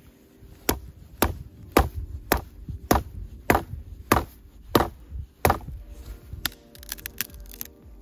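Wood being chopped: about nine steady, sharp blows roughly every half second, followed near the end by a few lighter, quicker knocks.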